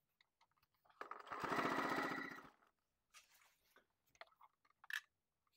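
Electric household sewing machine stitching zipper tape onto a jacket: one short run of rapid, even needle strokes starting about a second in and lasting about a second and a half. A few faint clicks follow.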